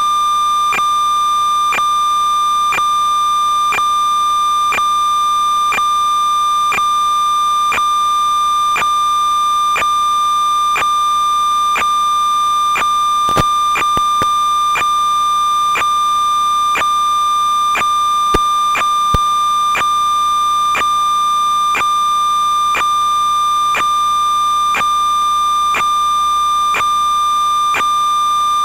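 A steady, high electronic tone with a short tick about once a second and a few louder clicks near the middle. The tone does not change as the quad takes off and flies: it is electrical noise on the FPV recording's audio track, not the motors.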